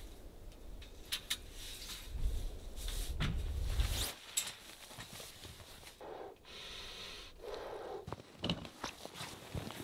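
Camping gear being handled on a metal cot frame: a scatter of short knocks and clicks with fabric rustling as a sleeping pad is laid out.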